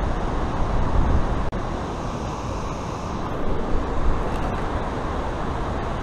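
Steady low rush of water pouring over the nearby dam falls, with a brief dropout about a second and a half in.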